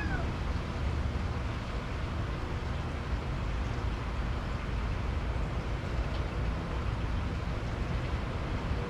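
A cat's meow ends right at the start, followed by a steady low rumbling background noise with no distinct events.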